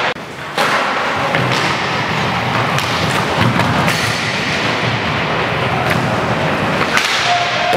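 Inline hockey play echoing in a sports hall: a steady rumble of skates on the wooden floor, broken by repeated sharp clacks of sticks and puck and thuds of players going down on the floor.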